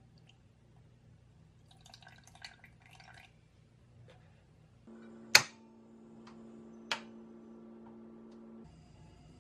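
Milk poured into a stainless steel saucepan, a soft splashing trickle. Then comes one sharp, loud metallic click and, about a second and a half later, a second, quieter click from the tabletop gas stove the pan sits on.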